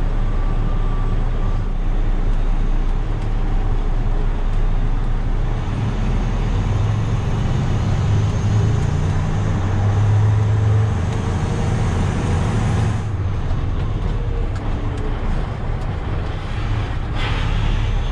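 Beet truck's engine running steadily under way with road noise, a low drone whose pitch rises gently for a few seconds in the middle and dips briefly about 13 seconds in.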